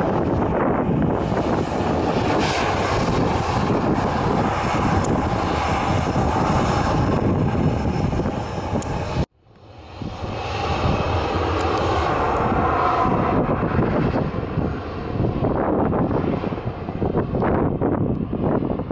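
Fixed-wing aircraft engine noise with wind buffeting the microphone. The sound cuts out abruptly about nine seconds in and comes back, with a steady whine standing out a few seconds later.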